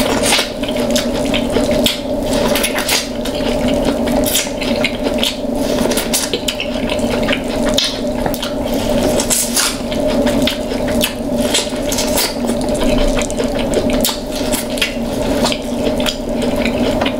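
Close-miked wet eating sounds: chewing, sucking and picking meat from king crab claw shells, with many irregular small clicks and cracks. A steady low hum runs underneath.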